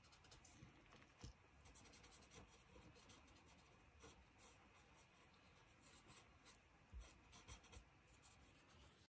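Faint scratching of a Stampin' Blends alcohol marker colouring in on paper in short strokes, with a few soft knocks.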